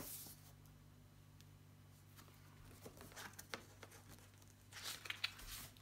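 Near-silent room tone with a faint steady hum and a few soft clicks, then a brief paper rustle near the end as a page of a paperback book is handled or turned.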